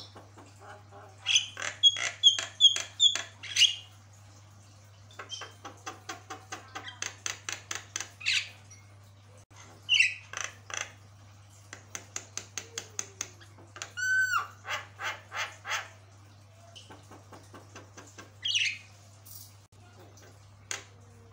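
Caged Javan myna (jalak kebo) singing in runs of short, rapid clipped notes, several a second, in bursts of one to three seconds with pauses between. A single clear whistled note comes a little past halfway, and a steady low hum runs underneath throughout.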